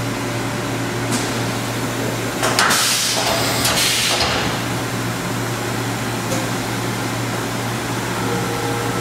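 LK Machinery TC-1200 vertical CNC drill-tap center starting its cycle: a steady machine hum, a loud rushing burst of about a second and a half around three seconds in, and a steady higher whine that comes in near the end.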